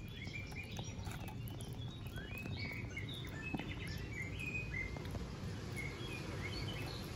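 Small birds chirping in short, scattered calls over a steady low outdoor hum, with the soft smacking of kittens eating wet cat food.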